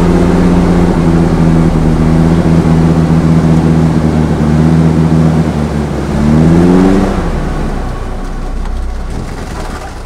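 UAZ Bukhanka van's engine working under load as the van wades through deep swamp water. It holds a steady pitch, revs up about six seconds in, then dies away.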